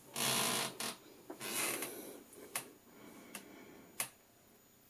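Hand rubbing and pressing down on the foam insert of an aluminium flight case: two short soft rustles, followed by a few separate sharp clicks.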